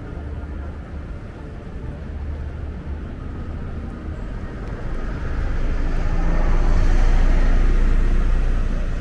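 City road traffic with a steady low rumble. About five seconds in, a vehicle passing close by swells to a peak and then fades.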